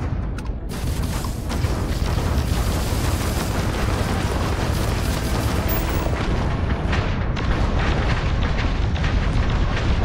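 Video game combat sound: dense, continuous gunfire and explosions with music underneath.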